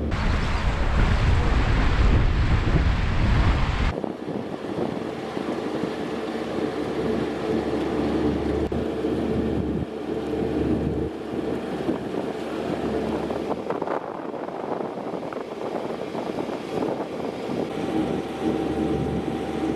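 Narrowboat engine running steadily under way, a low even hum. Wind buffets the microphone hard for the first four seconds, then drops away.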